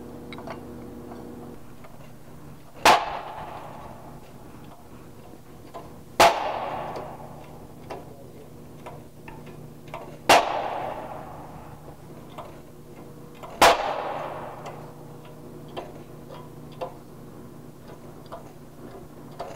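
Hydraulic shop press being pumped to push an old rubber lower control arm bushing out of its steel bracket, a BMW E46 'lollipop': four loud sharp bangs about three to four seconds apart, each ringing out briefly, with light ticks between them as the press-fit bushing gives under load.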